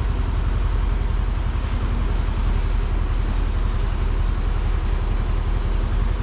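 Heavy construction machinery's diesel engine running steadily: a continuous low engine drone.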